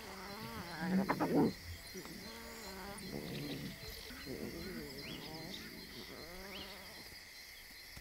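Lion cubs calling with repeated short, pitch-bending mews while they suckle and nuzzle their mother. The calls are loudest in a burst about a second in and keep coming until near the end.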